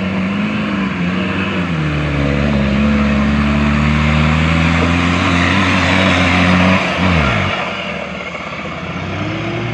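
Turbocharged 2.8 Toyota Hilux engine pulling under load with the revs climbing slowly, then the throttle is lifted about seven seconds in and the revs fall away quickly. There is no turbo flutter on the lift-off.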